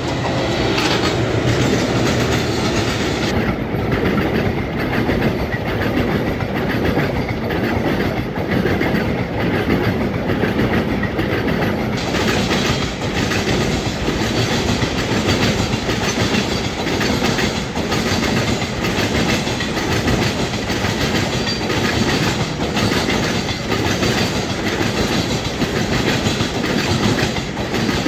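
Long container freight train rolling past close by: steady clatter and rumble of wagon wheels over the rail joints. Twin WDG-3A diesel locomotives pull it.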